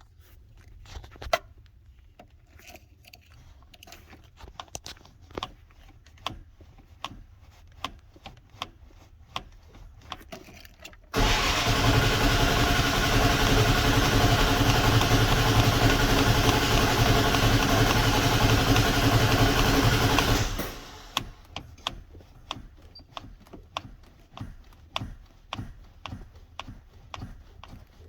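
A Dodge engine being cranked by the starter in a hard start: a loud, steady cranking sound begins suddenly about eleven seconds in, runs for about nine seconds and stops abruptly. Scattered light clicks come before and after it.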